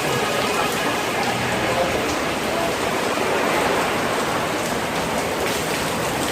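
Steady rain falling, a dense even hiss of drops on surfaces.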